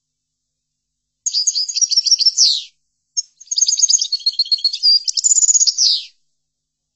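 European goldfinch (chardonneret) singing: two twittering phrases of rapid, high notes, the first about a second and a half long and the second about three seconds, each ending in a quick downward sweep.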